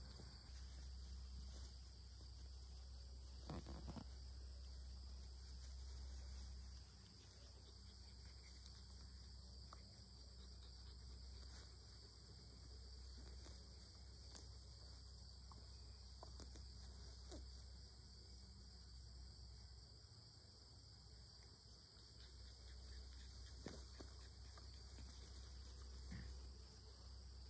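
Faint insects droning steadily in two high-pitched bands, over a low rumble, with a few faint soft clicks.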